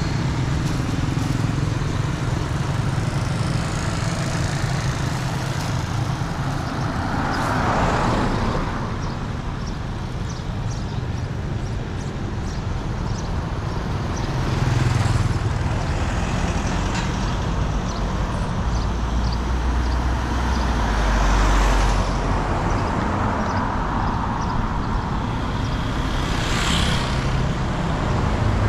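Street traffic: vehicles passing one after another, each swelling and fading over a steady low rumble.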